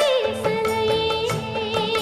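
Tamil film song: a long melodic note held with vibrato over percussion and accompanying instruments.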